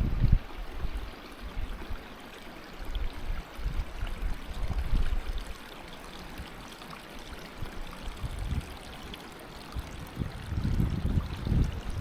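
A small waterfall's water flowing and splashing in a steady rush. Low rumbles of wind on the microphone come in right at the start and again near the end.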